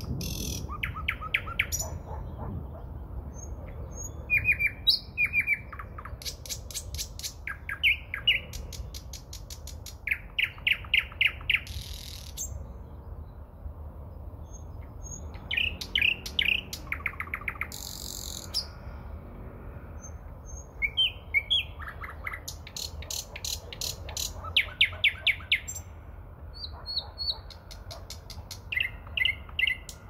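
Thrush nightingale singing in separate phrases a second or two apart: fast runs of repeated notes and clicking, rattling strokes, mixed with short high whistles.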